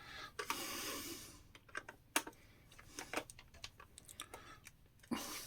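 Scattered light clicks and taps of a screwdriver and the plastic parts of a Dyson V6 cordless vacuum being handled during reassembly, with a brief rustling hiss about half a second in.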